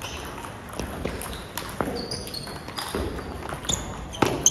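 Table tennis balls clicking off paddles and the table in an irregular string of sharp hits, the loudest two close together near the end, with a few short high squeaks in between.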